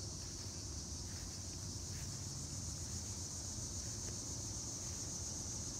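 Steady high-pitched chorus of insects over a low, steady rumble of road traffic.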